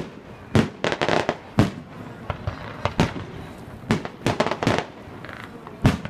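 Aerial firework shells bursting: an irregular string of sharp bangs, several close together about a second in, with another loud one near the end.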